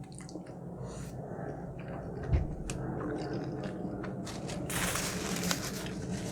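Close-miked chewing of crunchy food, with crisp crackling bites and a louder burst of crunching about five seconds in. A dull thump comes a little after two seconds.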